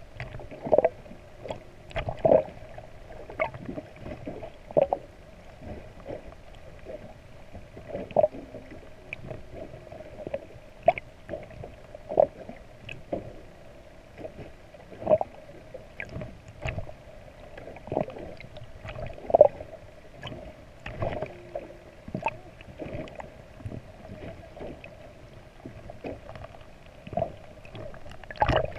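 Underwater noise picked up by a camera beneath the surface: a steady hum with frequent short, irregular knocks and pops.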